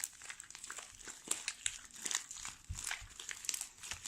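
Fluffy slime of glue and shaving cream being mixed and squeezed just after more Tide activator went in: a dense run of small, irregular sticky crackles and clicks, with one soft low thud near the middle.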